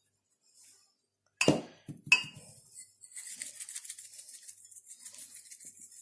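Two sharp glassy clinks, about a second and a half and two seconds in, then a fast, even, scratchy ticking as pepper is dispensed over mackerel pieces in a glass baking dish.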